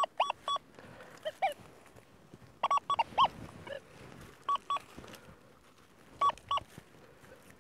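XP Deus 2 metal detector giving a strong target signal: clusters of short, high beeps, a 'real screamer', as the coil passes over the target in the dug soil.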